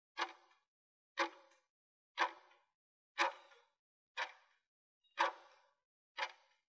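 Countdown timer sound effect ticking once a second: seven short, sharp ticks, each with a brief fading ring.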